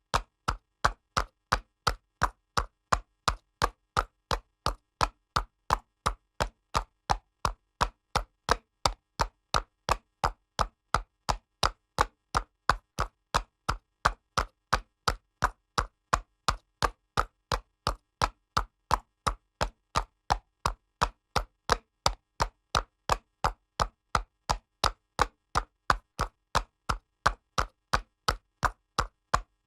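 Horse's hooves trotting on pavement: a steady, even clip-clop of sharp hoof strikes, about three a second.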